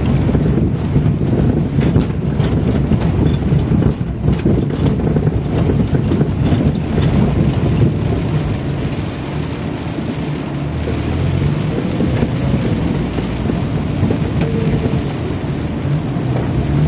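Car driving over a rough, rain-soaked dirt road, heard from inside the cabin: a steady low rumble of engine and tyres with scattered knocks.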